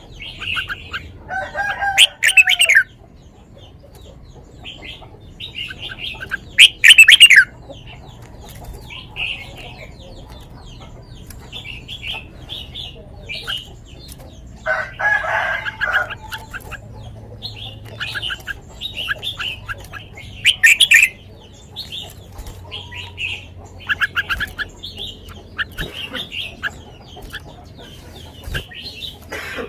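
Red-whiskered bulbul singing: short, sweet whistled phrases repeated every second or two, with louder bursts every few seconds.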